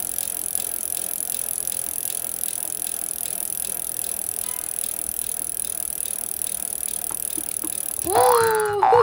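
Toy spinner whirring steadily with a fast, even ticking. About eight seconds in, a loud sliding, springy tone cuts in over it.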